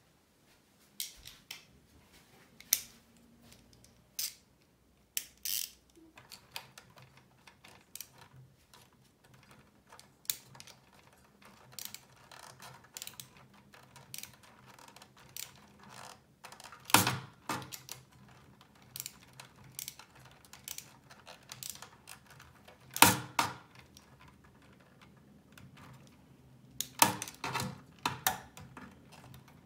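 Irregular clicks and clacks of small metal parts being handled as a new speaker terminal and its wires are fitted into the back panel of an opened amplifier. Two louder knocks come partway through, and a quick run of clicks comes near the end.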